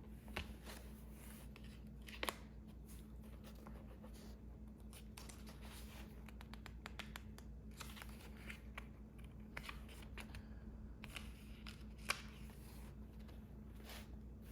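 Quiet close-up handling sounds of hands working with paper and pen: scattered light scratches, taps and rustles. Sharper clicks come about half a second in, at about two seconds and at about twelve seconds, over a faint steady hum.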